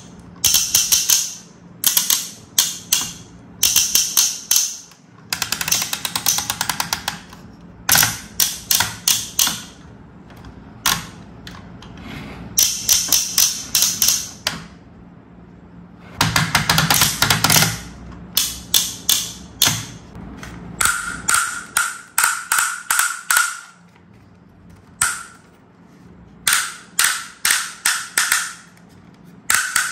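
Plastic clicking and ratcheting of a toy fire truck's ladder as it is raised, extended and turned by hand, in quick runs of sharp clicks, with a few short squeaks near the end.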